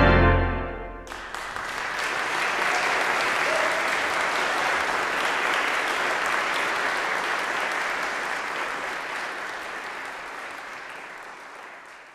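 The final held chord of a Kimball theatre pipe organ dies away in the first second, then an audience applauds steadily, fading away near the end.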